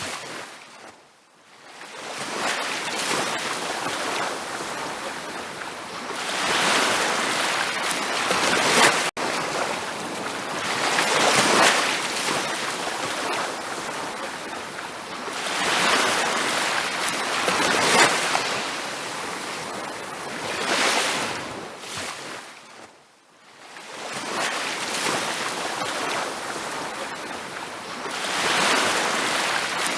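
Ocean surf: waves breaking and washing up a beach, the noise swelling and easing every few seconds and fading almost to nothing twice between waves.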